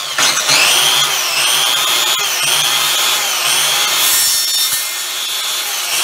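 Circular saw cutting into the wood of an old Langstroth deep hive box, forced through a nail embedded in the wood. The saw's whine dips and recovers in pitch about once a second as the blade is pushed through the cut.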